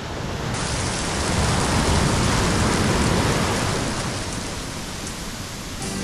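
Surf washing over a black sand beach: a dense, rushing hiss of breaking foam that swells from about a second in and eases off toward the end.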